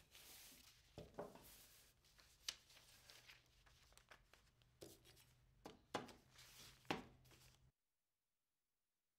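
Faint handling of paper and painter's tape on a workbench: soft rustling with several light knocks and clicks. The sound cuts off to dead silence near the end.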